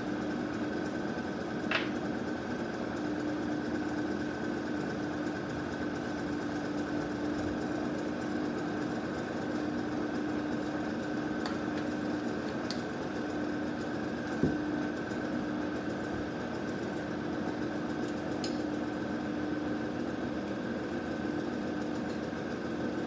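Steady hum of a small electric motor from the airbrushing setup, running at an even level, with a few light clicks and knocks, the clearest about two seconds in and again midway.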